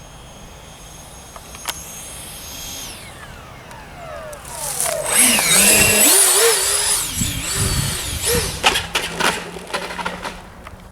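A radio-controlled model jet's engine whine falls steeply in pitch as it flies past, then grows loud and wavering for a few seconds. Near the end come several sharp knocks and clatters.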